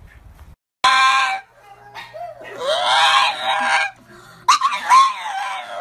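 A pug giving three high, wavering vocal cries, the first short and the next two longer, each bending up and down in pitch.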